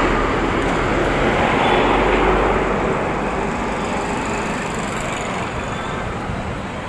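Steady street traffic noise, an even rumble and hiss that fades slowly.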